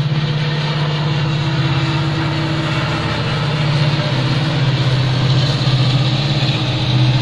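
WDG4D diesel-electric freight locomotive's 16-cylinder two-stroke EMD engine running as it hauls a container freight train past, a steady deep drone that swells a little near the end as the train goes by.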